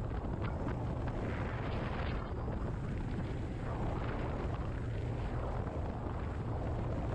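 Small boat running across open water: a steady low rumble from its motor and hull, with wind buffeting the microphone.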